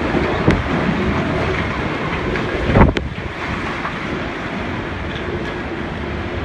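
Typhoon-force wind gusting hard and buffeting the microphone. A louder gust hits about three seconds in and ends in a sharp knock.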